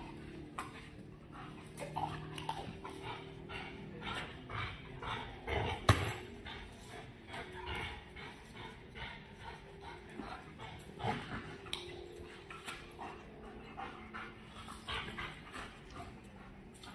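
A Malinois-type working dog whining during a tug game, mixed with many short scuffs and clicks. One sharp loud knock comes about six seconds in.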